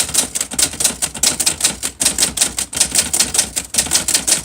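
Olivetti-Underwood Studio 44 manual portable typewriter being typed on fast: a steady, dense run of sharp keystroke clacks as the typebars strike the platen.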